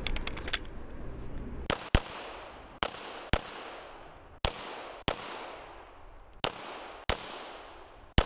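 Glock 34 9mm pistol firing about nine shots, mostly in quick pairs with a second or so between pairs, each shot ringing off briefly.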